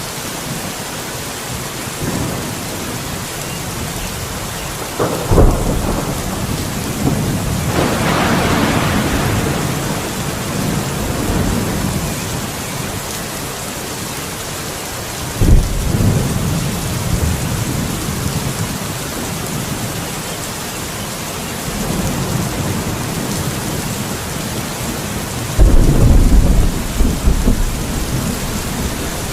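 Thunderstorm: steady heavy rain with thunder. Three sharp cracks, about 5, 15 and 25 seconds in, each trail into a low rumble, and a longer rolling rumble swells between them. The last crack is the loudest and crackles on for a few seconds.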